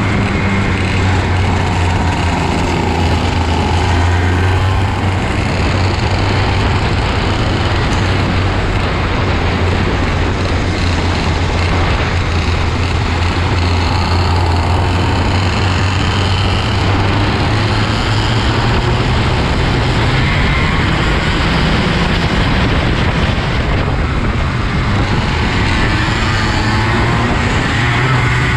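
IAME KA100 kart's 100cc two-stroke engine running hard at racing speed, heard from the driver's seat. The engine note holds fairly steady for most of the time, then climbs in pitch near the end as the kart accelerates.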